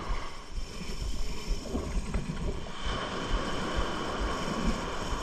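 Surf washing up the beach, with wind buffeting the microphone in irregular low rumbles.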